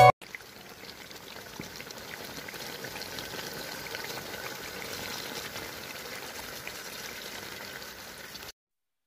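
Thick chicken perattu masala simmering in a pot: a steady soft sizzle and bubbling with small scattered pops, cutting off suddenly near the end.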